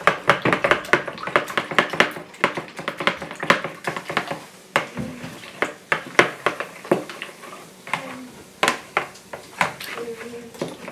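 Raw eggs being beaten with a metal utensil in a plastic mixing bowl: quick, sharp clicks of the utensil striking the bowl, dense for the first few seconds and then more spaced out.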